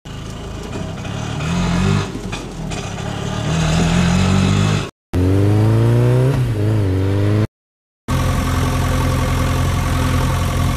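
Dubbed engine sound effects in three clips, each cut off abruptly by a brief silence. First an engine revving, then a second sharp rev rising in pitch, then a steady idle from about two-thirds of the way in.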